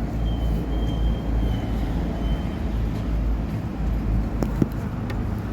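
Steady low rumble of a motor vehicle running, with a thin high whistle in the first couple of seconds and a couple of light clicks near the end.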